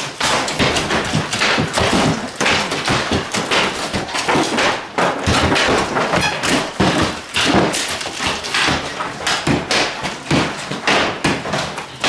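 Hammers and crowbars knocking apart house walls in demolition: a dense, irregular run of sharp knocks and thuds, several a second, overlapping as if from more than one worker.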